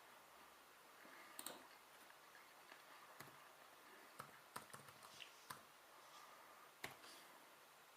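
Near silence with a dozen or so faint, sharp clicks at irregular intervals, most in the middle and the sharpest near the end.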